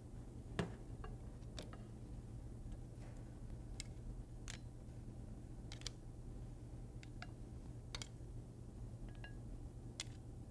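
Metal tongs clicking against a stainless steel pan and cooked mussel shells clacking together as the mussels are lifted out one by one, in scattered sharp clicks. A heavier knock about half a second in, as the pan is set down on the steel counter.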